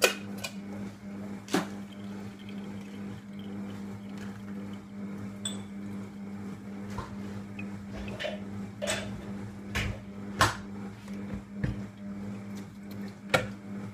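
Monsieur Cuisine kitchen machine running a slow stirring and heating programme (speed 2, 60 °C), a low steady hum. Over it come scattered sharp clicks and knocks of containers and utensils handled on the worktop, the loudest at the start, at about a second and a half, and near the end.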